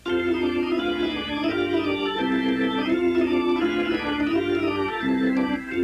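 Organ music: held chords that change every second or so over a low bass line.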